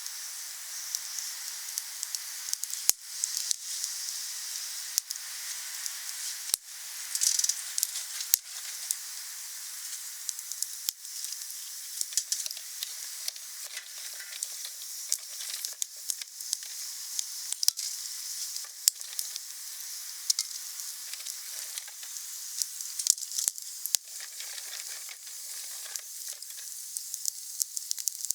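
Wood bonfire burning, with a steady hiss and frequent sharp crackles and pops from the burning wood.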